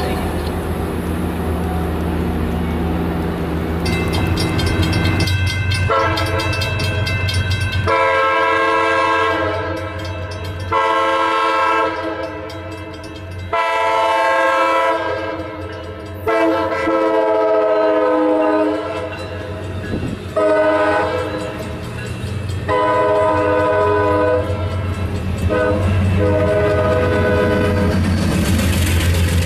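Diesel passenger locomotive's multi-note horn sounding a long run of about nine blasts, mostly long with a few short, as a train approaches a grade crossing. A low diesel engine rumble sits underneath at the start and again near the end.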